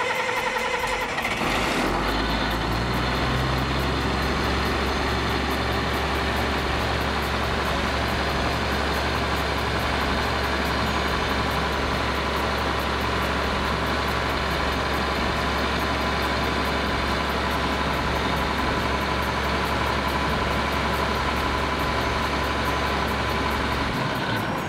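Caterpillar C7 six-cylinder turbocharged diesel engine on a pump skid, just started, settling about two seconds in and then running steadily at idle. Its deep note stops about a second before the end as the engine is shut down.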